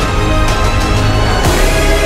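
Theme music for the end credits, loud, with sustained tones over a deep bass and a beat about every half second.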